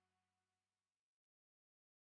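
Near silence: the last faint tail of the closing music fading out and cutting off about a second in, then complete silence.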